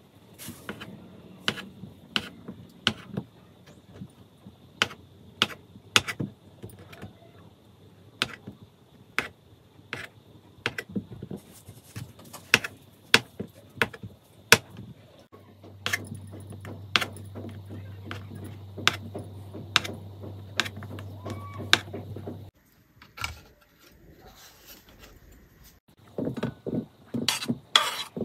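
Knife cutting paneer on a chopping board: a long series of sharp taps every half second to a second as the blade meets the board. A low steady hum runs under the taps for several seconds in the second half, and a quick cluster of knocks comes near the end.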